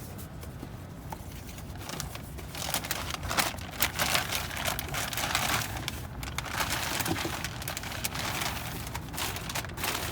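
Packaging crinkling and rustling irregularly as the new coolant expansion tank is unwrapped, starting about two seconds in.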